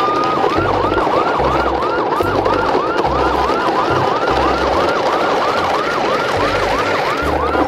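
Emergency vehicle siren: the end of a long rising wail, which switches just after the start into a fast yelp of quick repeating pitch sweeps, about three a second, over a steady rumbling noise.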